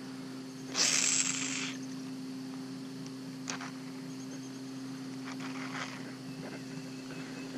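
Small electric trolling motor humming steadily. A short hiss about a second in comes as the line goes out on a cast, and a few faint clicks follow.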